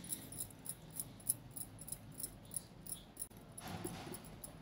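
Metal spoon stirring thick yogurt and ground spices in a glass bowl, with light clinks and scrapes against the glass repeating about three times a second.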